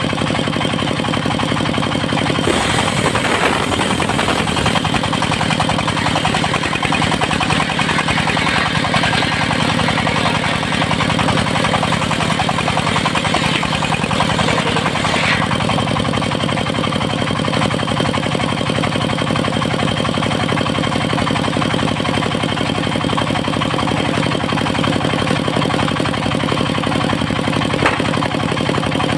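Portable circular sawmill's engine running steadily under the spinning blade. From a couple of seconds in until about halfway, the blade cuts through teak with a harsh hiss over the engine, which stops abruptly as the cut finishes.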